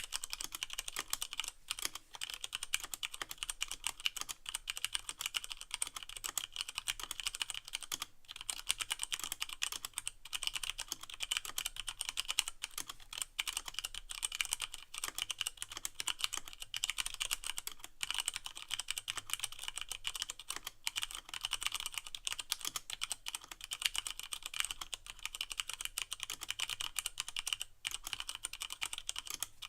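Continuous fast typing on a Leopold FC660M mechanical keyboard with Cherry MX Brown switches and no O-rings: a dense stream of key clicks and keycap clacks as each key bottoms out, with brief pauses a few times.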